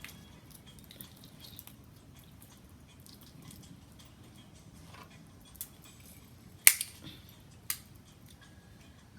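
Sharp cracks and clicks of snow crab leg shells being broken by hand, a few scattered light ones and the loudest about two-thirds of the way in, followed by another a second later.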